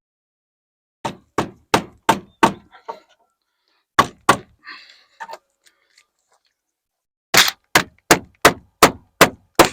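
Hammer driving nails into wooden framing: a quick run of about five strikes, two more a moment later, then a steady run of about eight strikes near the end, roughly three a second.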